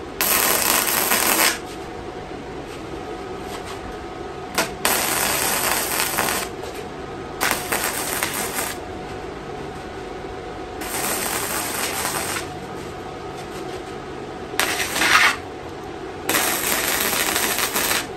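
Welding arc crackling in six short bursts of one to two seconds, with pauses between them, as pieces of a steel grill frame are tacked together. The welds come out spattery and poor, which the welder blames on not having cleaned the metal surfaces.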